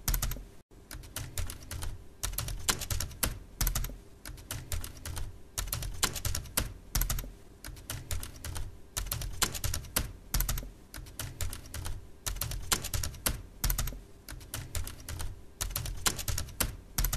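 Computer keyboard typing: a fast, steady run of key clicks with brief pauses between groups of strokes.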